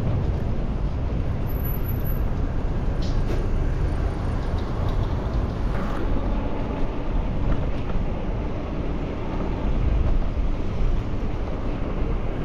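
Steady rumble of city road traffic with wind noise on the microphone.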